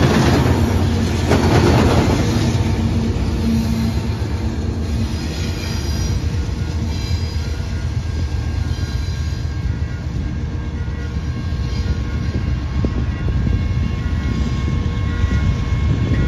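GE C44-9W diesel locomotives working as distributed power on a BNSF freight train pass by, their engines running with a deep drone over the noise of wheels on the rails. The sound is loudest in the first couple of seconds, then lower as the train moves away.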